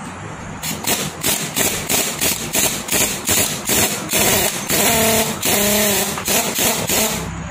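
Pneumatic impact wrench hammering on the nut of a brush cutter's blade head, in rapid short bursts that run into longer stretches later on. It is trying to undo a nut that was locked tight with an impact gun and will not come off.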